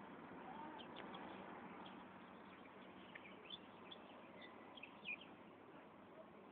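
Faint outdoor quiet with scattered short, high bird chirps, the loudest about five seconds in.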